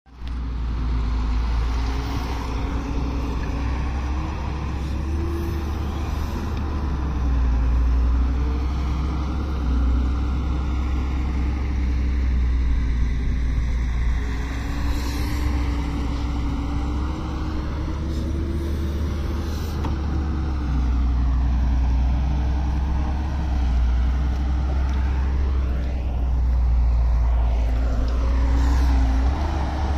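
Diesel engines of a Halla 145 wheeled excavator and a tipper dump truck running steadily as the excavator loads the truck and the truck drives off. A strong low rumble lies under the sound throughout.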